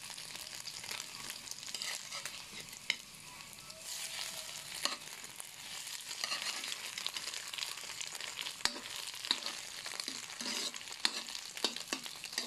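Egg sizzling as it fries in oil in a wok, cooked until browned, with a spatula scraping through it and a few sharp clicks as it knocks the pan.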